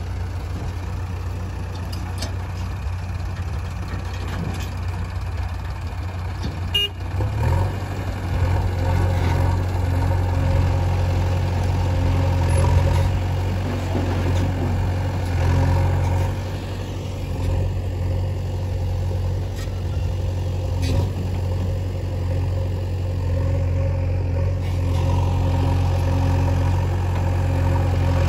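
JCB 3DX backhoe loader's diesel engine running under load as the backhoe digs and loads soil, a steady low rumble that grows louder about seven seconds in and then rises and falls with the work.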